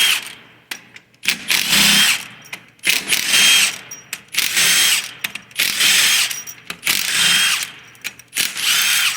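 Power driver spinning out the pump-to-case bolts of a 4L60E automatic transmission, in about six short bursts of about a second each, each with a high whine that rises slightly as it spins up.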